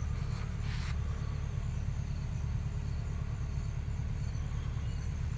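Steady low rumble of outdoor background noise, with a faint hiss above it and no distinct event.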